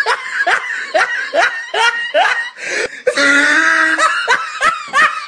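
Loud, high-pitched laughter in quick ha-ha bursts, about three a second, broken by a long held laugh about three seconds in; the same laugh pattern repeats like a looped laugh sound effect.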